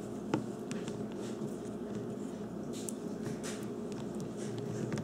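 Handling noise as a homemade AA battery pack, wrapped in tape, is pressed into a plastic cordless phone handset's battery compartment: a sharp click about a third of a second in, then light scraping and rustling over a steady low hum.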